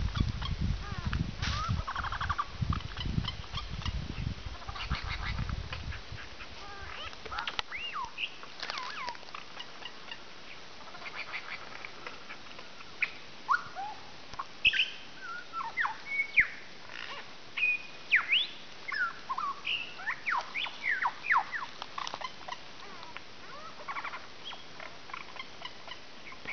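Superb lyrebird calling in its mimicking song, a run of sharp sweeping whistles and short calls that come thick and fast from about eight seconds in. The first few seconds hold a low pulsing sound.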